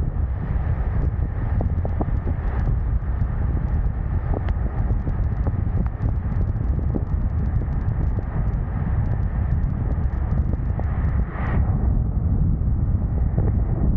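Wind buffeting the microphone of a camera on a moving vehicle: a steady low rumble with scattered light ticks. Near the end a brief hiss swells up and fades.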